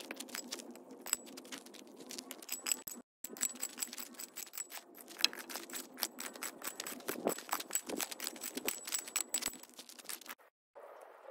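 Gravel and small stones clicking, rattling and scraping as stony ground is cleared by hand and with a long-handled tool, a quick run of small knocks. It breaks off briefly about three seconds in and again near the end.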